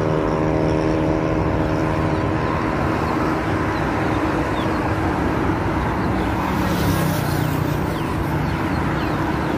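Motor traffic on a road heard from a moving bicycle: a steady rushing road noise, with one vehicle's engine hum fading over the first couple of seconds and another vehicle passing about seven seconds in.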